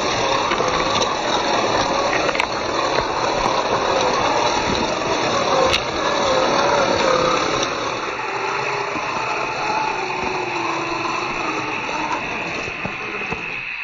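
Brushed electric motor and drivetrain of a 1:10 scale Axial SCX10ii RC rock crawler whining, its pitch wavering up and down with the throttle and sinking lower in the second half, as the tyres grind over loose rocks and a couple of stones click.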